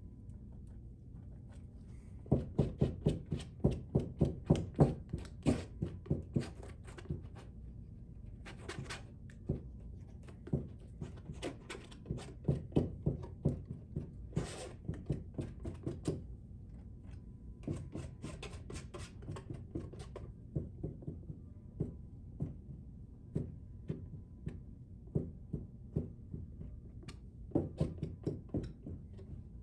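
Palette knife dabbing and pressing thick oil paint onto a stretched canvas: quick taps on the canvas, several a second, in runs with short pauses between.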